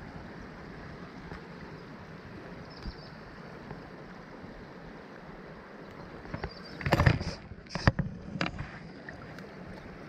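Steady rush of flowing creek water, with a short burst of knocks and clatter about seven seconds in.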